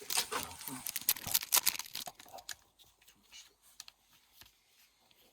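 Hockey card pack wrapper being torn open and crinkled: a dense crackle for about two seconds, then scattered lighter crinkles and clicks.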